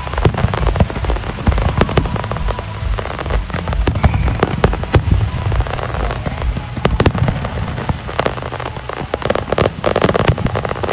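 Fireworks going off in a rapid, continuous barrage: many sharp bangs and crackles close together over a steady low booming.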